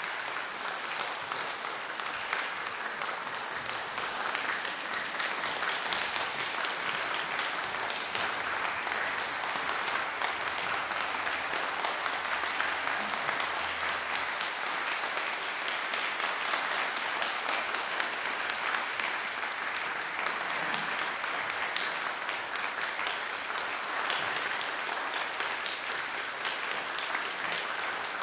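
Concert audience applauding steadily, a dense, even clapping that holds at the same level throughout.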